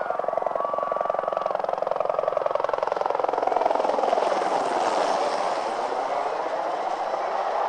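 Sikorsky UH-60 Black Hawk twin-turbine helicopter flying overhead, its main rotor giving a rapid, steady chop. It swells slightly around the middle as its pitch dips and climbs again.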